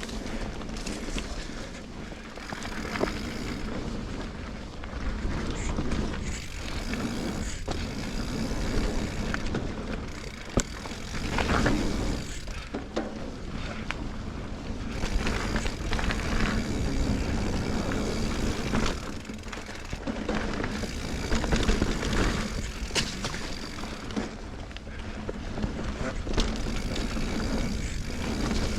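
Sonder Evol mountain bike riding down a dirt trail: a steady rush of tyre and wind noise, broken by frequent knocks and rattles as the bike goes over bumps.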